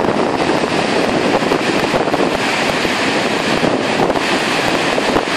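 Gullfoss waterfall: a loud, steady rush of falling water, with wind buffeting the microphone.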